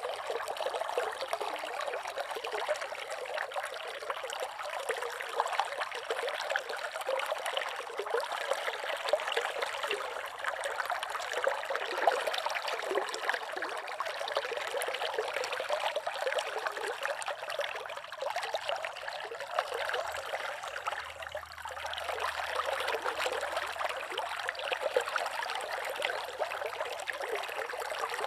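Slow river flowing: a steady trickling, babbling murmur of water.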